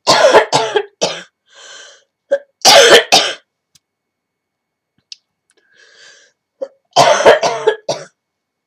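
A woman coughing in three loud fits, each about a second long, with breaths drawn in between.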